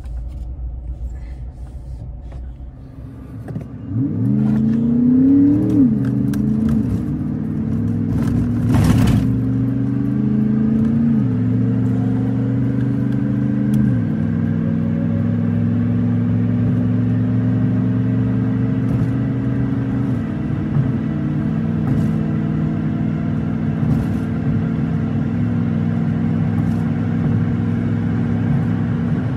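Pickup truck's engine heard from inside the cab, pulling away and accelerating. Its pitch rises and drops back at each upshift, three or four times, before it settles into a steady cruise. A sharp click sounds about nine seconds in.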